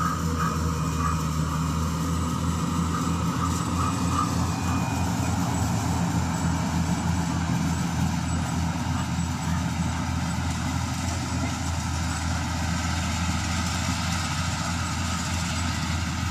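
An engine running steadily with a low, even drone. One of its higher hum lines drops away about nine seconds in.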